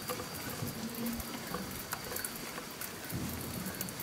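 Faint patter of water lapping and splashing, with scattered light clicks, while a hooked fish is being played on a fishing rod from a small boat.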